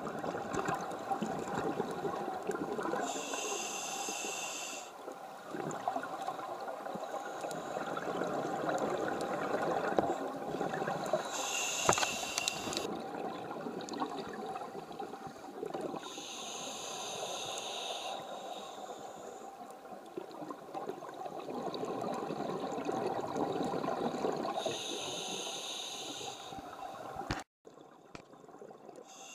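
Scuba diver breathing through a regulator underwater: a hissing inhale comes every several seconds, four times, over a steady rush of bubbling water. The sound drops off suddenly near the end.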